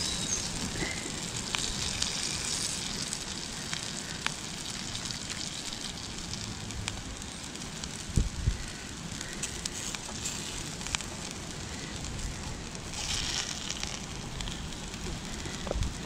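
Bacon sizzling in a frying pan on a camping stove: a steady hiss with scattered small pops and crackles. A couple of soft knocks about eight seconds in.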